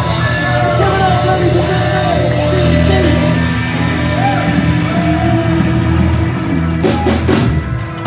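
Live band playing loudly: voices singing over electric guitar, bass guitar and drums, with a heavy bass line.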